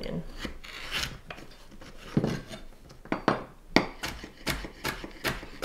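Chef's knife cutting carrots on a wooden cutting board. A few scattered cuts come first, then from about three seconds in a steady run of knocks about three a second as the carrot is diced.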